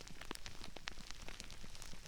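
Crispy rice raining down, crackling and popping in a dense, irregular stream of small sharp crackles, recorded binaurally so the pops come from all around.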